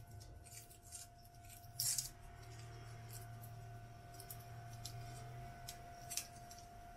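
Dry, papery garlic skins crackling and rustling as cloves are peeled by hand, in scattered small crackles, the loudest about two seconds in. A faint steady hum runs underneath.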